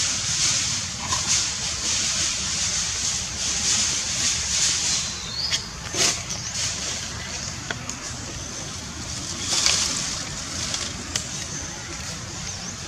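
Outdoor background noise: a steady high hiss over a low rumble, broken by a few sharp clicks and two brief, faint high chirps.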